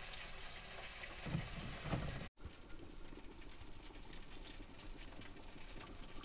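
Hot oil in an electric deep fryer sizzling and bubbling as a basket of battered crappie fillets is lifted out to drain, with a few low handling knocks. The sound drops out for an instant about two seconds in, then a steady sizzle carries on.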